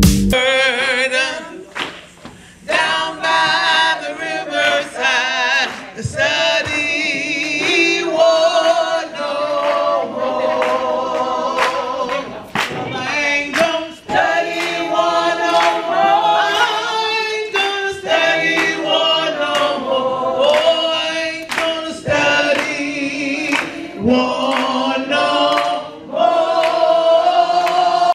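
A choir singing without instruments, voices held in long notes with vibrato, with a short break about two seconds in.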